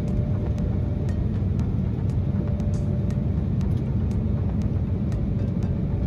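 Jet airliner cabin noise on a low approach: a loud, steady low rumble of the engines and airflow. A faint steady tone runs under it, with scattered light ticks.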